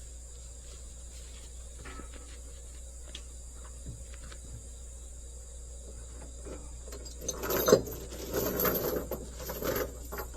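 Steady high chirring of insects, joined about seven seconds in by a run of irregular clunks and rattles, one sharp knock the loudest.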